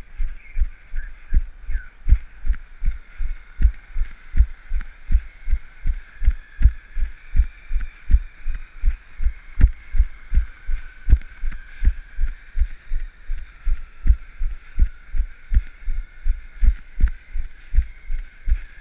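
Running footfalls jolting the camera the runner carries: a steady rhythm of low thumps, about three a second, with a faint steady hiss behind.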